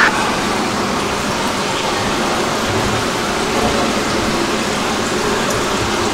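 Indoor swimming pool hall ambience: a steady, even rushing noise, with no distinct knocks or voices.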